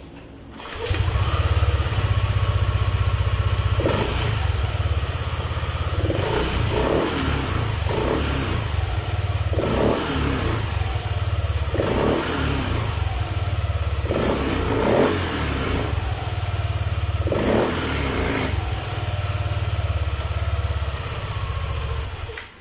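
Yamaha Aerox scooter's single-cylinder engine starting about a second in and running with the rear wheel spinning free on the centre stand. The throttle is blipped again and again, the revs rising and falling about every two seconds, until the engine is switched off near the end.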